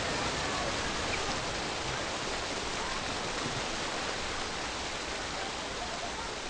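Steady rushing water noise, slowly fading.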